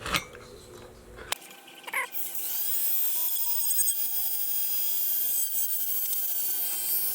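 A couple of knocks, then from about two seconds in a Dremel rotary tool runs steadily with a high whine, sanding a small piece of aluminium blind slat.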